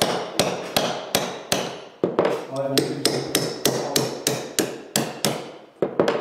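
Hammer blows on a steel pin punch, driving the handle pins out of an antique Bowie knife's brittle Bakelite-type scales on a metal bench. The blows come steadily at about three a second, each a sharp strike with a short metallic ring, with a brief pause about two seconds in.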